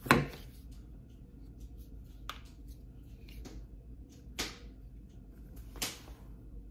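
Plastic parts of an Osmo Mobile smartphone stabilizer being handled: one sharp knock at the start, then four lighter clicks and taps spread over the next few seconds.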